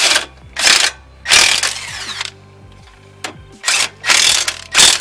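Earthquake XT 20V cordless impact wrench running in several short bursts, the longest about a second, as it runs in and snugs the front brake caliper bracket bolts by feel rather than to a torque spec.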